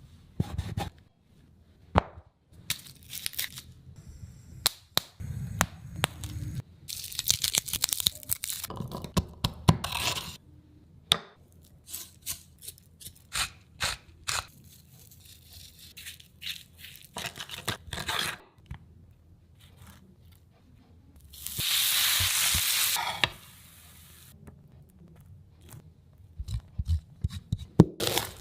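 Food-preparation handling sounds: scattered sharp clicks and taps, crinkling and crushing rustles, and one steady hiss of about a second and a half a little past two-thirds of the way in.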